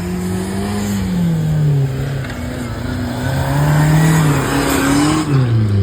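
Off-road jeep's engine revving. The engine note falls and rises a few times, then drops away near the end.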